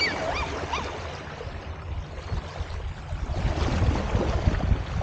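A dog barking and yelping, a few short high calls in the first second and fainter ones later, over a steady low rumble.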